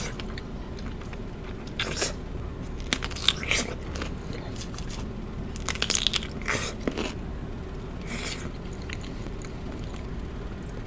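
Close-miked eating: crunchy bites and chewing in short bursts, about five of them, over a steady low hum.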